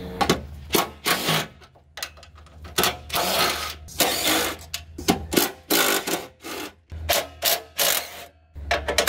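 Cordless impact driver running out the header-panel bolts in a series of short bursts, with clicks and clatter between them.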